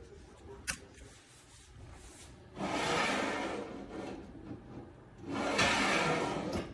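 A single sharp click, then two long rubbing scrapes, each lasting about two seconds.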